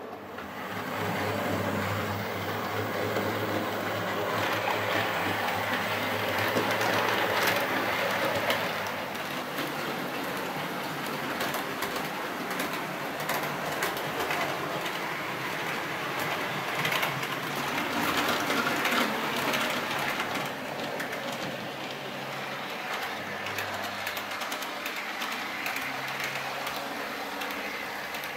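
Model train running on the layout's track: steady wheel-on-rail rumble and motor hum with light clicking over the rail joints, louder a few seconds in and again about two-thirds of the way through as it passes close by.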